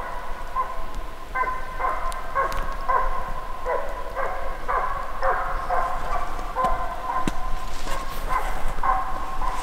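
A driving hound, a drever, baying over and over, about one to two barks a second, as it gives tongue while chasing game on the drive.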